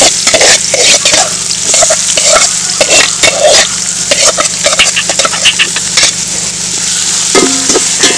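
Sliced onion, ginger and garlic sizzling in hot coconut oil in a metal pot, stirred with a metal spoon that scrapes and clinks against the pot many times.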